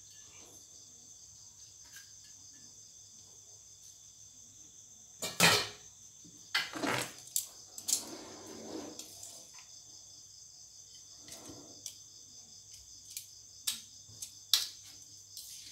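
Metal spatula and tongs clanking and scraping against a steel wok while prawns and glass noodles are served out, several sharp knocks with the loudest about five seconds in. Insects chirp steadily in the background.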